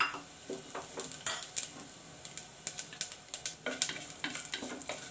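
Metal spoon clinking and scraping against an aluminium pressure cooker while stirring cumin seeds and whole spices in hot ghee, which sizzles lightly. A string of short clicks and knocks, the sharpest a little over a second in.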